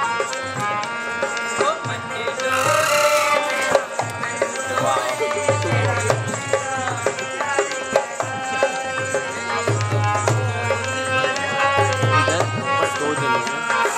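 Live Indian folk music: a hand drum beats a quick rhythm with deep bass strokes, under a sustained, droning melody.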